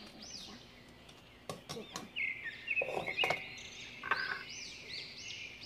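Small birds chirping over and over in quick rising-and-falling notes, with a few sharp clicks and knocks in the middle from scissors snipping open a cream pack and the pack and steel bowl being handled.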